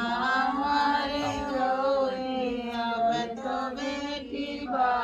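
Chanting in a sung, melodic line, with held notes that glide up and down over a steady low drone.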